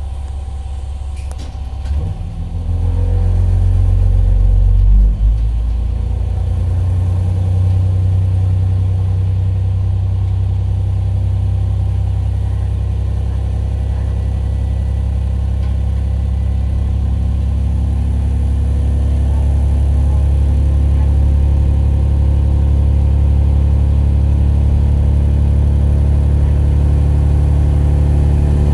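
Ibara Railway IRT355 diesel railcar's 355-horsepower engine idling, then revving up about two seconds in as the railcar pulls away from the station. It then runs steadily under power as the railcar gathers speed, heard from inside the cab.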